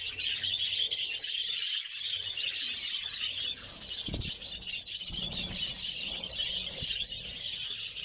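A colony of budgerigars chattering continuously, a dense mass of overlapping warbling chirps, with a brief low thump about four seconds in.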